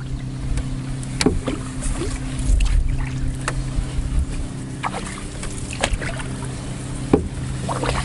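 Novacraft Prospector canoe on the water: small splashes and drips at irregular moments, about a dozen in all, over wind rumbling on the microphone and a steady low hum.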